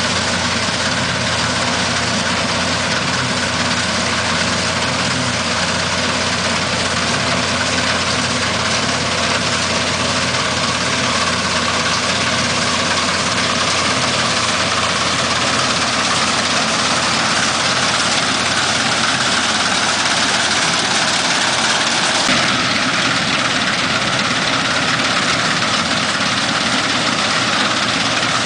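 Dania 900 self-propelled combine harvester running steadily, its engine and machinery making a continuous heavy drone; the tone shifts slightly about 22 seconds in.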